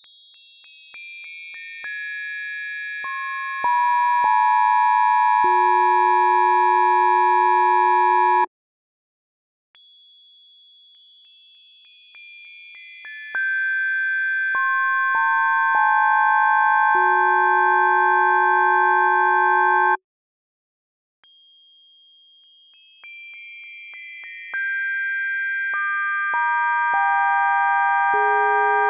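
Synthesized bell spectrum played as steady pure sine tones. A bell's partials come in one at a time, the highest first and the lowest last, stacking into a sustained chord that then cuts off. This build happens three times, at slightly different pitches each time.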